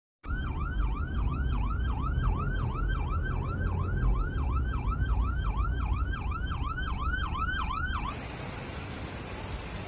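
Emergency vehicle siren sounding a rapid rising-and-falling yelp, about three cycles a second, over a heavy low rumble. About eight seconds in the siren stops abruptly and a steady hiss follows.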